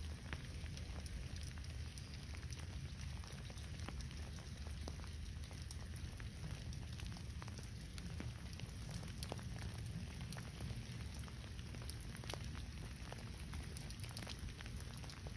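Rain falling: a steady patter of many small drop ticks over a low rumble.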